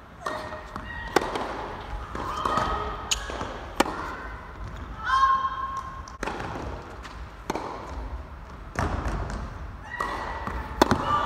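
Tennis ball being struck by rackets and bouncing on an indoor hard court: a series of sharp knocks spaced a second or two apart, with a short high squeal about five seconds in.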